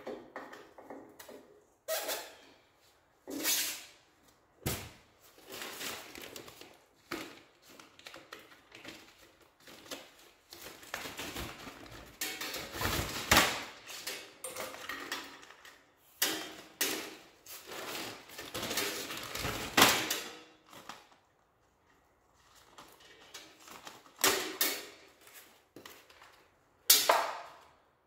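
Irregular handling noises from installation work: scattered sharp knocks and clicks between stretches of rustling and scraping, with one of the loudest knocks near the end.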